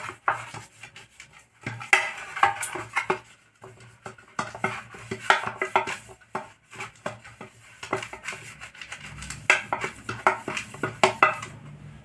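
A silicone pastry brush and a metal spoon scraping and tapping against an aluminium cake tin as it is greased with oil. The sound is a run of irregular clicks and scrapes, with louder clusters about two seconds in, around five seconds and again near the end.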